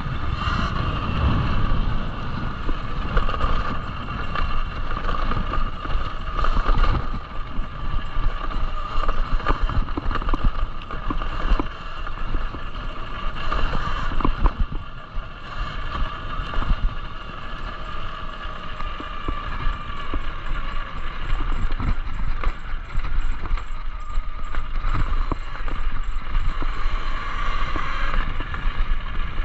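Talaria Sting electric dirt bike riding over a rough dirt and gravel trail: the motor's high whine rising and falling with the throttle, over tyre crunch, rattling knocks from the bike and wind rumble on the microphone.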